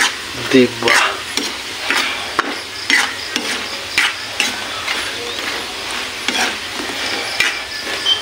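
Squid balls frying in hot oil in a metal wok, a steady sizzle, while a metal spatula stirs them, scraping against the pan in short strokes about once a second.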